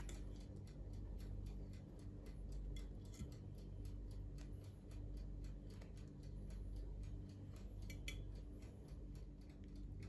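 A clock ticking steadily, several ticks a second, over a low room hum. About eight seconds in, a metal spoon gives a light clink against the dish.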